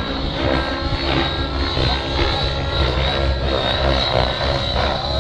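Nitro glow engines of two radio-controlled helicopters running hard through 3D aerobatics, with a steady high whine and rotor noise that shift in pitch as the pilots load and unload the rotors.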